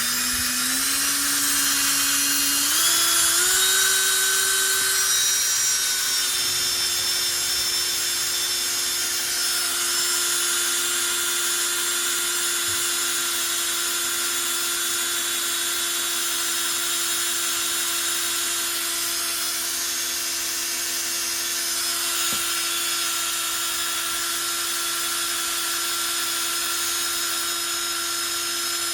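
Power drill turning a small-block Chevy's oil pump through a priming adapter and 7/16 socket, pumping oil through the engine to prime it. Its whine steps up in pitch over the first few seconds, then runs steady.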